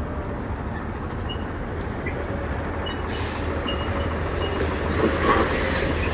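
A vehicle's engine running steadily with a low rumble.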